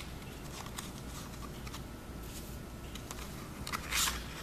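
Handling of a clear plastic clamshell tray and a cardboard sleeve: faint light rustles and small ticks, then a louder rustle of plastic against card near the end as the tray slides out of the sleeve.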